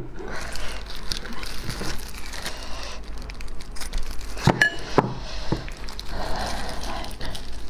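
Clear plastic food gloves crinkling as hands grip and pull at a large sauced sausage, with a few sharp clicks about halfway through.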